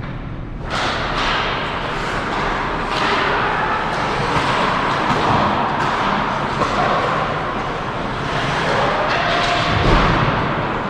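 Ice hockey play on a rink: skates scraping the ice, with scattered knocks and thuds from sticks, puck and boards. The noise jumps up sharply about a second in.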